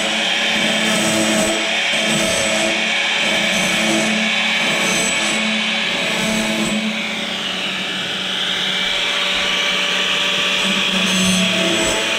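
A power tool's motor running steadily while the teeth of a sawmill band blade are sharpened one after another, the grinding sound coming and going about once a second.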